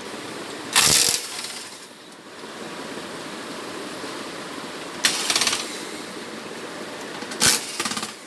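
Corded electric screwdriver working the screws of a flat-screen TV's plastic back cover in three short bursts, about a second in, about five seconds in and near the end, over a steady low background hum.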